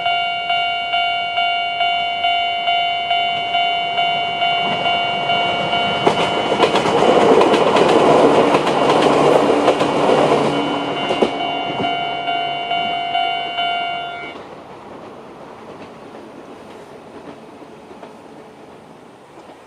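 Japanese level-crossing electronic alarm ringing in the older standard tone at a fast tempo, about two strikes a second. From about six to eleven seconds in, a Chichibu Railway 7500-series electric train passes with wheel clatter over the rails. The alarm cuts off suddenly about fourteen seconds in.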